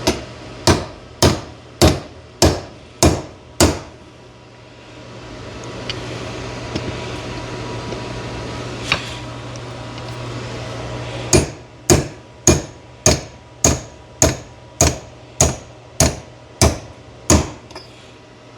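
Heavy hammer blows driving a steel pin through a tight 1968 Firebird door hinge, metal on metal, in an even rhythm of a little under two strikes a second. There is a run of seven blows, a pause of several seconds, then about a dozen more, over a steady low hum.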